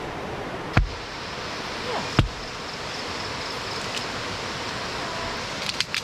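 A steady rush of river water, with two sharp knocks, about a second and two seconds in, of a blade chopping into an upright log, and a few lighter knocks and clicks near the end.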